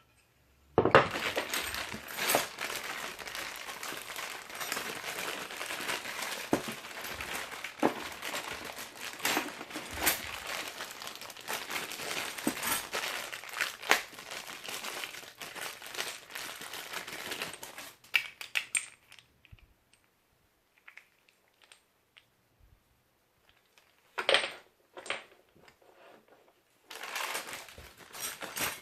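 Packaging being handled and unwrapped, with dense crinkling and rustling for most of the first two-thirds and short bursts of crinkling again near the end.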